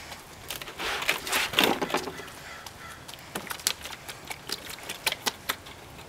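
Sharp clicks and knocks of hard plastic as a child's hands work the pull-out drawer of a plastic play table, with a longer, denser rattling stretch about a second in.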